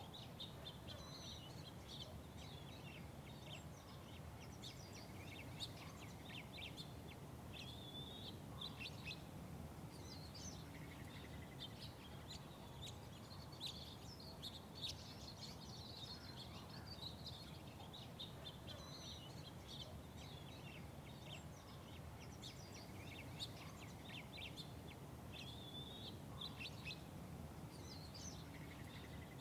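Many small birds chirping and twittering without a break, over a steady low background rumble.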